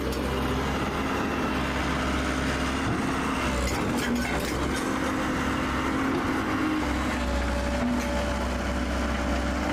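Heavy engine running steadily with a low rumble, its pitch shifting a little about four seconds in and again near seven seconds, typical of construction machinery working on a site.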